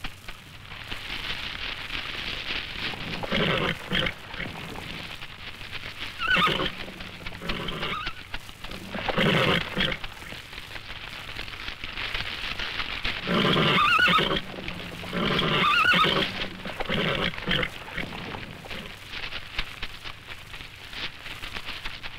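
A Camargue horse, the white stallion, whinnying and neighing over and over in terror as fire closes in. The calls come in about eight shrill, wavering bursts over a steady hiss of burning.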